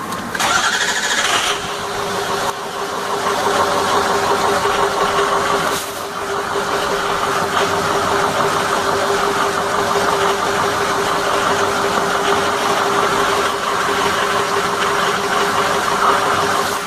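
Ford 6.0L Power Stroke V8 turbodiesel running steadily with a steady tone through it. It gets louder about two and a half seconds in.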